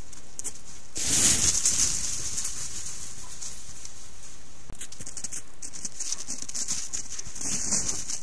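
Steady hiss from a trail camera's microphone, with two short bursts of rustling noise about a second in and near the end, from wolves moving close to the camera in snow.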